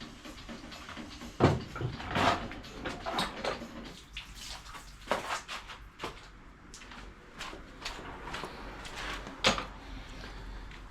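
A few sharp knocks and clunks of things being handled and set down, the loudest about a second and a half in and again near the end, with scuffling and rustling between.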